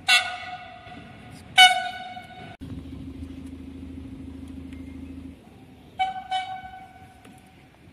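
Locomotive horn sounding three blasts on one note: a short toot, a second blast about a second and a half later, and a longer blast about six seconds in. A low steady hum fills the gap between the second and third blasts.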